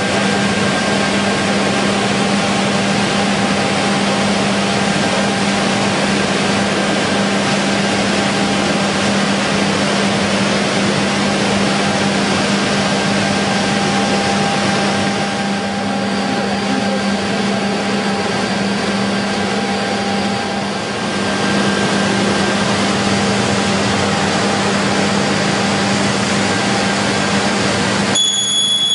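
Steady mechanical din of woodworking machinery running in an exhibition hall, with a constant low hum under a broad hiss. The sound changes abruptly about a second before the end.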